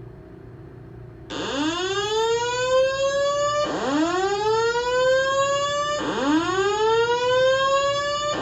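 Building fire alarm sounding its whoop tone: starting about a second in, a tone sweeps upward, cuts off and starts again from the bottom every two and a half seconds or so, three times.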